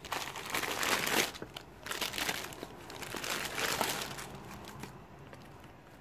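Thin clear plastic packaging around a rolled saree crinkling as it is handled, in several bursts over the first four seconds, then dying away.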